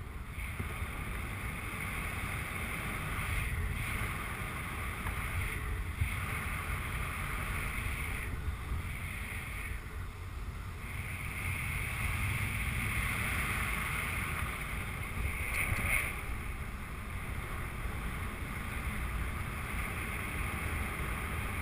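Steady rush of airflow over the microphone of a paraglider pilot's head-mounted camera in gliding flight, a low rumble with a hiss that swells and dips.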